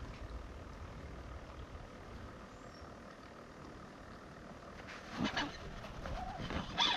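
Low, steady wind rumble on the microphone. About five seconds in, a fish takes the live bait, and a few short sharp noises follow as the rod loads up and the spinning reel's drag begins to give line.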